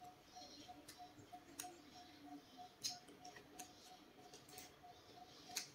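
Faint wet mouth clicks and lip smacks from eating soft, ripe jackfruit bulbs, a few sharp ones scattered through, over a faint, even ticking about three times a second.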